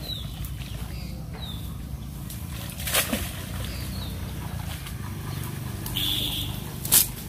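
A few short, falling bird chirps over a steady low hum. Two sudden sharp noises, about three seconds in and again near the end, are the loudest sounds.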